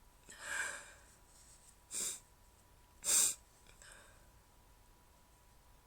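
A woman's breathing through the nose just after a sneeze: a breathy exhale about half a second in, then two short nasal bursts about a second apart.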